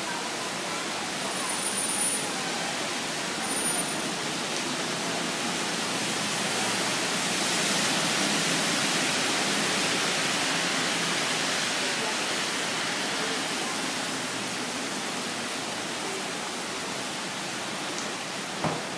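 Steady hiss of rain falling on a flooded road and pavement, swelling for a few seconds in the middle. A car door shuts with a single sharp clap near the end.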